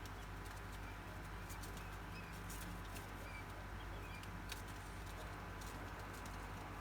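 Quail giving a few faint short chirping calls, with scattered light taps.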